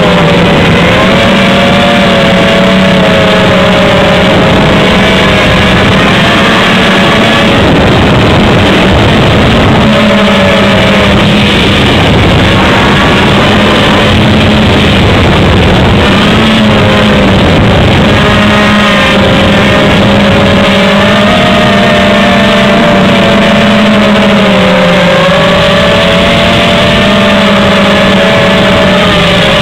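HobbyKing X230 quadcopter's four motors and propellers buzzing steadily in flight, heard from on board, the pitch rising and falling as the throttle changes.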